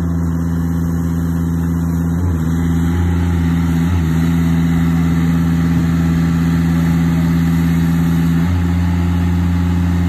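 A utility work machine's engine idling steadily with a low, even hum. Its note dips briefly a few times.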